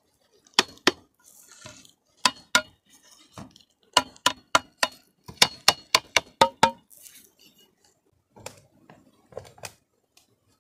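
A machete blade striking green bamboo poles: sharp hollow knocks with a short ring, in small groups, with a quick run of about ten strokes in the middle.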